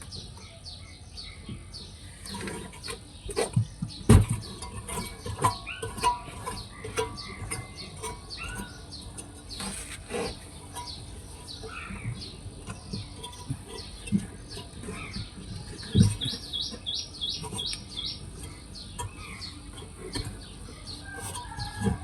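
Birds chirping, with a quick run of short chirps a little past the middle, over scattered knocks and clicks. Three louder knocks come about six seconds apart.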